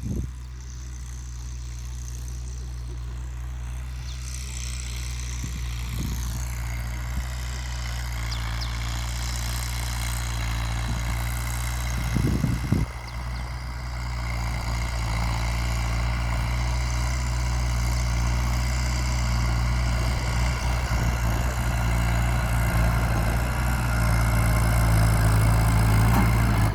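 New Holland TT75 tractor's diesel engine running steadily under ploughing load, gradually growing louder, with a brief louder clatter about halfway.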